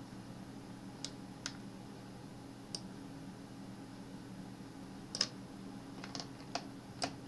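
Several short, sharp clicks of a computer mouse, spread unevenly, over a faint steady low hum.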